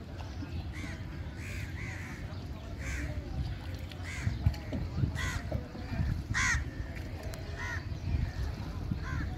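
Crows cawing repeatedly, about nine separate caws spaced roughly a second apart, the loudest about six and a half seconds in, over a steady low rumble.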